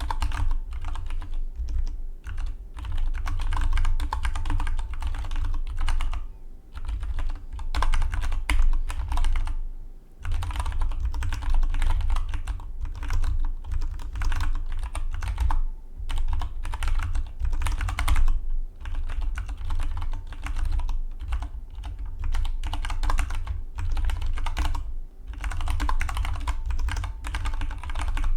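Fast typing on a Dygma Defy split mechanical keyboard: a dense, continuous run of key clacks, broken by a few brief pauses.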